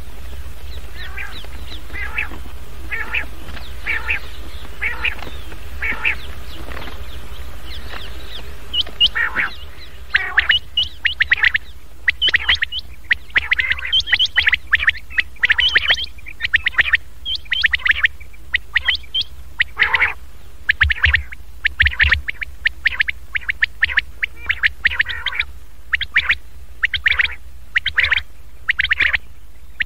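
Recorded common quail calls of the kind played as a lure to draw in quail: short, sharp calls about once a second, then a faster, louder run of calls from about ten seconds in. A steady low hum runs underneath.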